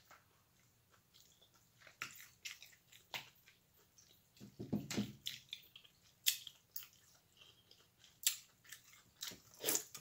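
Close-up mouth sounds of a person eating seafood boil: wet chewing with a string of short, irregular smacking clicks, starting about two seconds in, and a bite into corn on the cob near the end.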